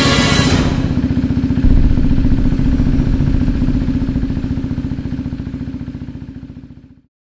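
Motorcycle engine running with a steady low throb, fading out over the last few seconds.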